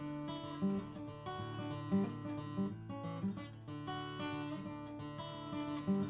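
Solo steel-string acoustic guitar played fingerstyle: picked melody notes, a few accented ones, over ringing bass notes.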